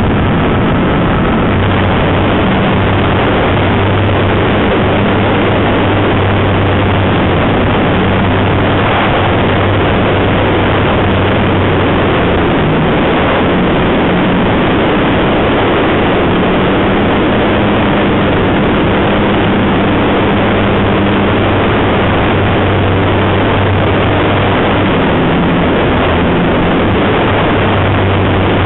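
Radio-controlled Tiger Moth model aeroplane's motor and propeller running at high power, heard close up from an onboard camera under the fuselage through the take-off run and climb. It is a loud, even rushing drone with a steady low hum underneath.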